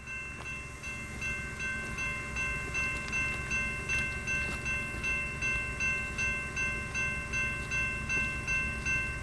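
Railroad grade-crossing warning bell ringing steadily, about three strikes a second, over a low rumble.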